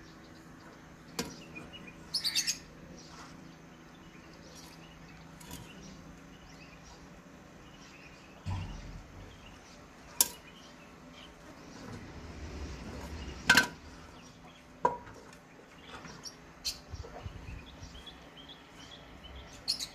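Scattered clicks and taps as hands handle a paper banknote and a small plastic glue bottle on a galvanized metal sheet, the sharpest about thirteen seconds in. A few brief bird chirps come through, and a faint steady hum runs under the first eight seconds or so.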